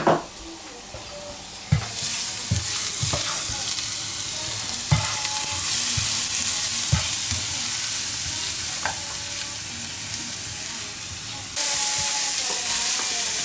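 Minced garlic sizzling in oil in a frying pan, stirred with a spatula that knocks against the pan now and then. Near the end sliced leeks are tipped into the pan and the sizzling turns louder.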